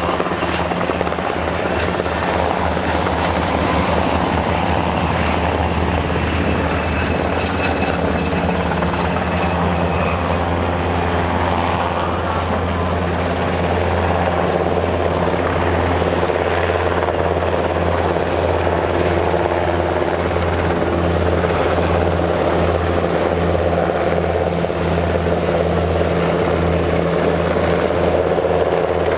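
NH90 twin-turbine helicopter in flight carrying an underslung vehicle: a steady, loud rotor beat with turbine whine, holding level throughout.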